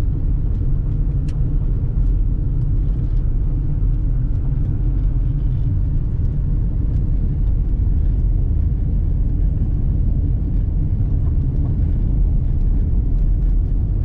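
Car driving on a gravel road, heard from inside the cabin: a steady low rumble of tyres and engine, with a few faint ticks.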